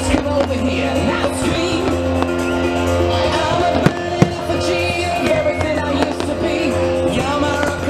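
Music playing throughout with firework aerial shells bursting over it; two sharp bangs stand out about four seconds in.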